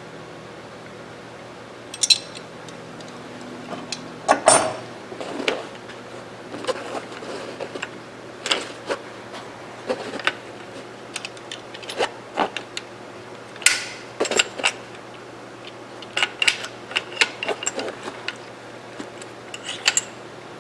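Irregular metallic clicks, clinks and taps of small rifle parts and tools being handled as a Mossberg 464 lever-action rifle is taken apart, the loudest cluster about four seconds in, over a steady low hum.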